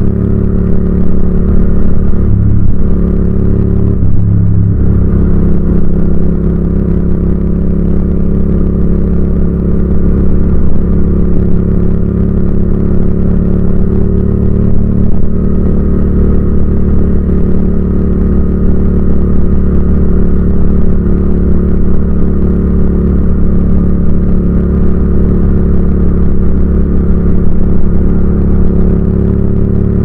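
Yamaha MT-07 (FZ-07) motorcycle's parallel-twin engine running steadily under way at a nearly constant pitch, with a brief change in its note about four seconds in.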